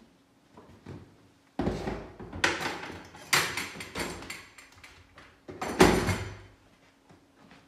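Tools and hard parts being handled and set down at a workbench: a run of knocks and rattles starting about a second and a half in, lasting about five seconds, with the loudest knock near the end.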